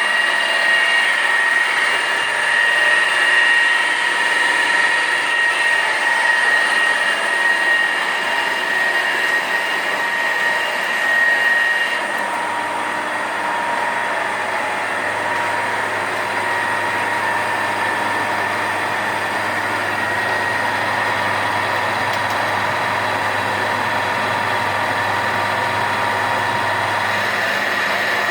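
Gildemeister NEF 360 CNC lathe running, a steady mechanical whine over a whirring hiss. About twelve seconds in the sound changes: the higher whine drops away and a low hum comes in.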